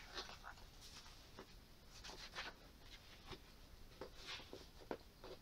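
Faint paper rustling and brushing from the pages of a hardback book being handled and then closed: a series of short, soft, irregular swishes and light taps.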